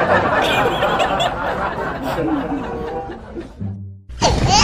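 Music with laughter over it, broken by a brief drop-out near the end before a new, loud sound starts.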